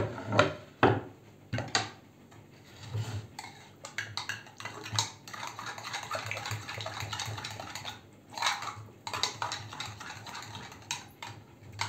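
Metal spoon stirring thick yogurt in a small ceramic bowl, scraping and clinking against the bowl's sides, with a run of sharper knocks in the first couple of seconds and again near the end.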